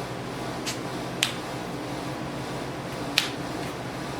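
Trading cards snapped down onto a tabletop: three sharp taps, two close together about a second in and one more about three seconds in, over a steady room hum.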